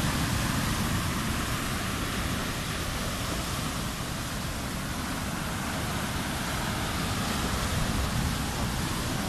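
Heavy storm surf: large waves breaking and washing up a sandy beach in a steady roar of water, a little louder at the start as a wave breaks.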